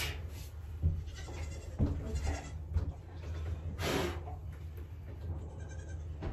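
Goat kids bleating in the background, over a steady low hum. A few short knocks come from the metal shelf being handled, the clearest about four seconds in.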